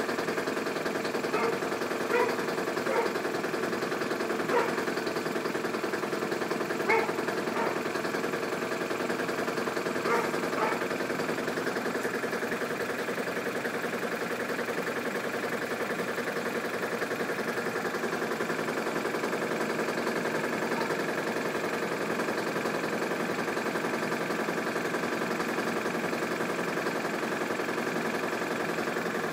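Small push-mower engine running steadily on HHO (hydrogen-oxygen gas from an electrolyser) instead of gasoline. There are a few sharp knocks in the first ten seconds or so, after which it runs smoothly.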